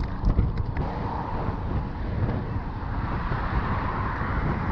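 Wind buffeting a chest-mounted action camera's microphone while riding a mountain bike on a road, with a few rattling clicks in the first second and a steady rush of tyre and traffic noise from about a second in.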